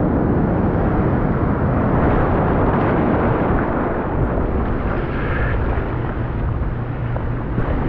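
Breaking surf and churning whitewater: a loud, steady rush, heard from a camera held at water level in the waves.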